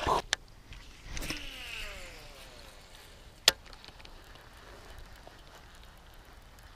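A released bass splashes back into the pond. Then a baitcasting reel's spool whirs during a cast, its whine falling in pitch as the spool slows. A single sharp click comes about three and a half seconds in, followed by faint reeling.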